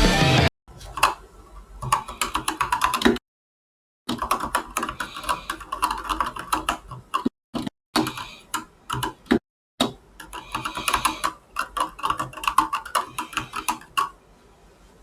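Corsair K100 mechanical gaming keyboard being typed on fast, its keys clattering in several bursts, each stopping dead in abrupt silent gaps.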